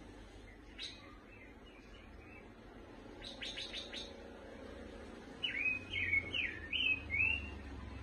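Caged pancawarna songbird singing: a sharp chirp, a quick rattle of clicking notes about three seconds in, then a loud phrase of five quick rising-and-falling whistled notes in the second half.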